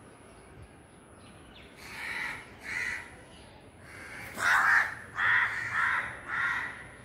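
Crows cawing, about six calls in short runs starting about two seconds in, the loudest in the middle. These are alarm calls of crows agitated by a cat close to their nest.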